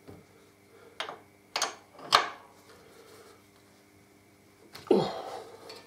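Open-ended spanner clinking against a bolt head on a motorcycle frame: three sharp metal clicks between about one and two seconds in, the last the loudest, then a duller knock near the end.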